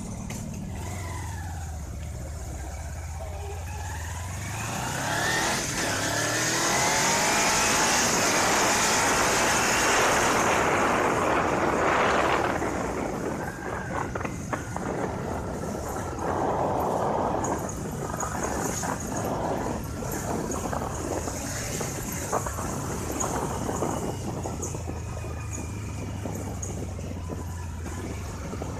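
Road traffic: a motor vehicle engine idling with a steady low hum, then pulling away with a rising whine and rushing road noise, then idling again near the end.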